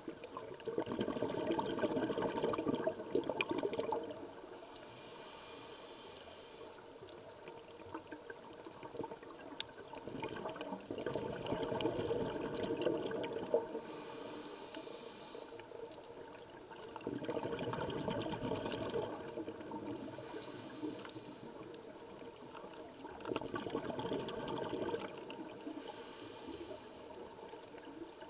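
Scuba regulator breathing heard underwater: about four long bubbling exhalations, each followed by a short, thin hiss as the next breath is drawn.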